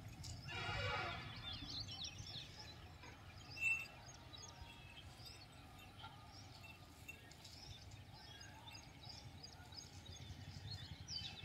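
Outdoor ambience of birds calling: scattered small chirps over a low steady rumble. A louder harsh call comes about half a second in and lasts around a second, and a short sharp call follows a few seconds later.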